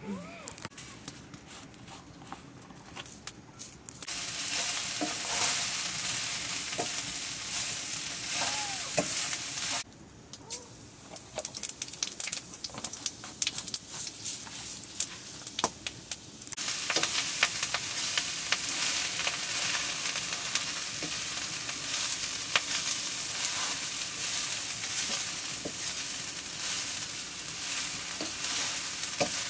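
Food frying in a black iron wok over a wood fire: hot oil sizzling as seeds and then chopped leafy greens are fried, with a ladle clicking and scraping against the pan as it is stirred. The sizzle starts about four seconds in, drops away for several seconds in the middle, and comes back loud from about halfway.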